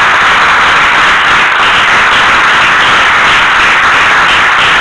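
A congregation applauding loudly, a dense, steady wash of many hands clapping.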